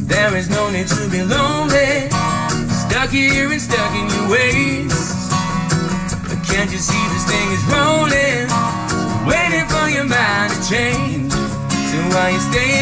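Acoustic guitars strummed while a man sings lead into a handheld microphone: a live acoustic pop-rock song.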